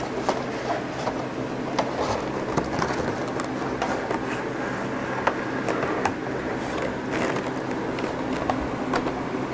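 Headset packaging being handled and opened: scattered clicks and rustles of cardboard and plastic over a steady low hum.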